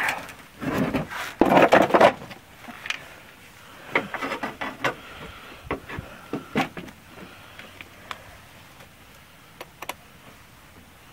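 A marine deep-cycle car battery's plastic case scraping and knocking as it is lowered and seated into the truck's battery tray, loudest in the first two seconds. Then lighter clicks and knocks as the terminal cables and clamps are handled.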